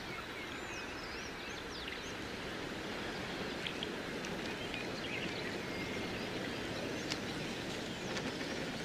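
Birds chirping now and then: short, high calls that slide in pitch, over a steady outdoor background hiss.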